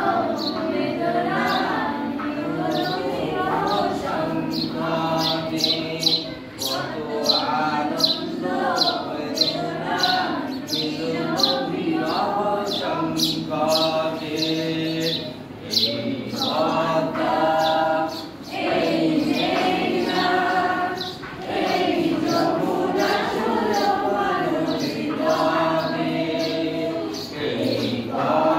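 A teacher and his class of schoolgirls singing a song together without instruments, in phrases with short breaths between them, over sharp beats keeping time about twice a second.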